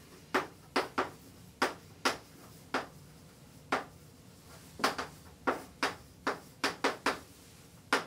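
Chalk tapping and scraping on a blackboard as words are written: a string of short, sharp strokes at an uneven pace, coming closer together in the second half.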